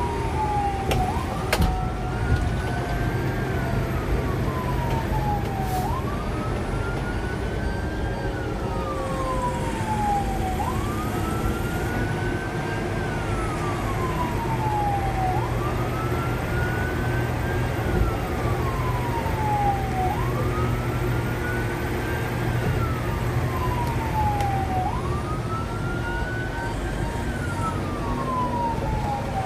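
Fire engine's siren wailing, heard from inside the cab. Each cycle climbs quickly in pitch and then falls away slowly, about once every five seconds, over the steady low drone of the truck's engine and road noise.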